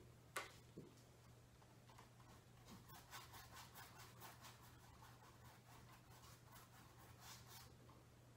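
Faint scratchy brushing of a paintbrush laying black acrylic paint onto a stretched canvas: quick, repeated short strokes from about two and a half seconds in until near the end. A light tap comes about half a second in, over a low steady hum.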